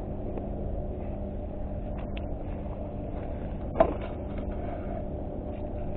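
A steady low rumble with a faint droning hum, like a distant engine, and a single sharp click a little under four seconds in.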